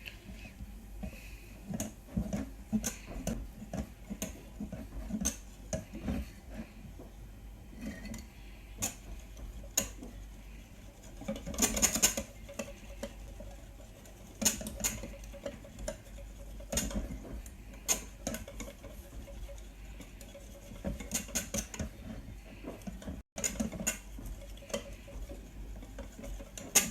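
A utensil stirring a batter of flour, sugar and milk in a bowl, with irregular clicks and scrapes against the bowl's sides; the loudest clatter comes about twelve seconds in.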